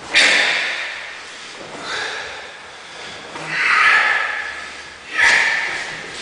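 A martial artist's sharp, forceful exhalations through nose and mouth, about four of them, each timed to a kama strike and tapering off quickly.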